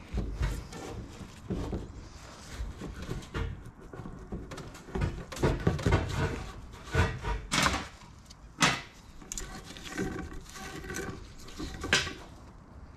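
Irregular knocks, clanks and rattles of sheet-metal fuel tanks being handled and shifted about, a few strikes sharper than the rest.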